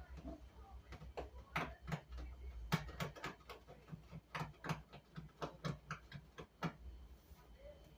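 A run of irregular light clicks and knocks, some twenty of them, over a low rumble.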